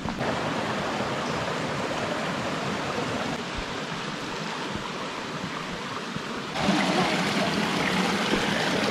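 Shallow forest stream flowing and babbling over stones, a steady rush of water that gets louder about two-thirds of the way through.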